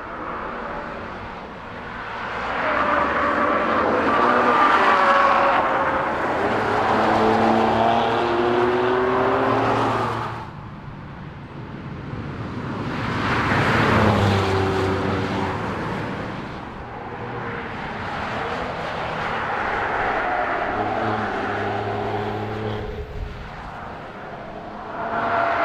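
Camouflaged Mercedes-Benz GLE Coupe prototype's engine accelerating past hard, its pitch climbing through the revs, heard in several passes that each break off suddenly at a cut.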